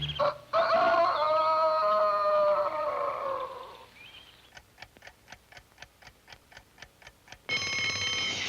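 Cartoon sound effects: a clock ticking quickly, about five ticks a second, then an alarm clock bell ringing near the end. Before the ticking comes a short pitched, wavering phrase from the score.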